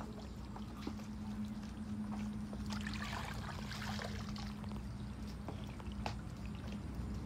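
Many small fish flapping and splashing in shallow muddy water: scattered small splashes and ticks, thickening into a patch of trickling and splashing about three seconds in. A steady low hum runs underneath.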